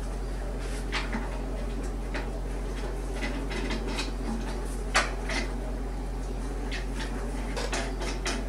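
Scattered light metallic clinks and taps as tools and bolts are handled around a stainless steel washing machine drum, the loudest about five seconds in, over a steady low hum.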